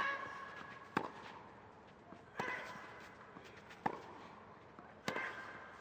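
A tennis ball struck back and forth with racket strings in a rally on clay: five sharp hits, about one every second and a quarter.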